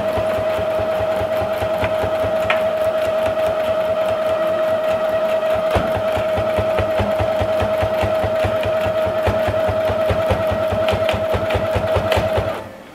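Electric household sewing machine stitching continuously through fabric: a steady motor whine with rapid, even needle strokes, stopping near the end.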